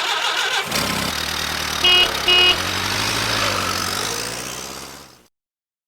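Two short car-horn honks about two seconds in, over a running vehicle engine that fades out near the end.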